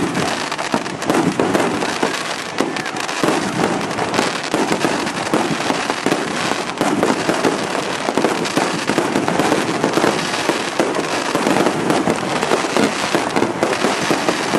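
Aerial fireworks display: a dense, unbroken barrage of shell bursts and crackling, many bangs a second with no pause.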